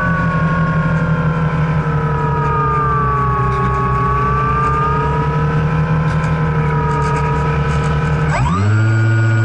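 Electric motor and pusher propeller of a Multiplex EasyStar II model plane whining in flight, heard from the onboard camera over a low buffeting of air. The pitch sags and wavers for most of the time, then climbs sharply about eight seconds in as the motor is throttled up.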